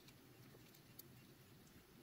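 Near silence, with a few faint light clicks from hands handling a GPS collar's circuit board and plastic housing.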